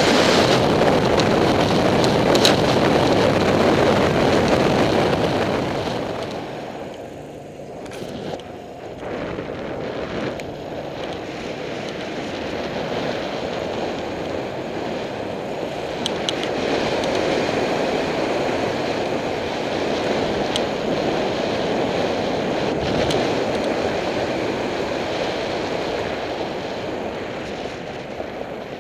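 Wind rushing over the microphone of a camera on a moving Suzuki DR350 dirt bike, with the bike's single-cylinder four-stroke engine running under it. It dips briefly about seven seconds in.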